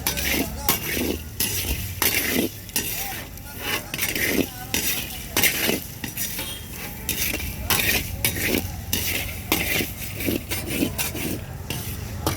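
A metal ladle scraping and clattering against a metal pan as a dry puffed-rice mix is stirred, in quick, irregular strokes.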